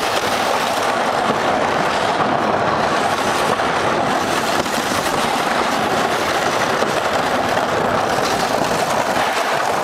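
Plastic sled scraping steadily over icy pavement as a dog tows it along.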